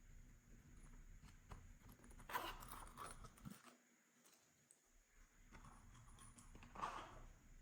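Slime being squished and mixed by hand: faint sticky crackles and squelches, with louder bursts about two and a half seconds in and near seven seconds.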